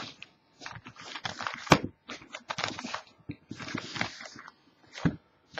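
Crinkling, scratchy rustles and quick clicks of a sealed trading card box being handled and opened, in irregular bursts.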